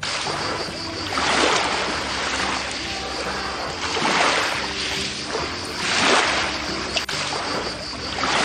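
Ocean waves washing in, the rush of surf swelling and falling back about every two to three seconds, over soft background music.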